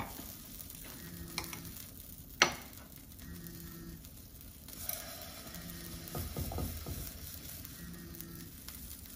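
Oat-and-banana pancake batter sizzling quietly in a hot nonstick frying pan as a metal spoon drops and spreads it, with a single sharp metal tap about two and a half seconds in.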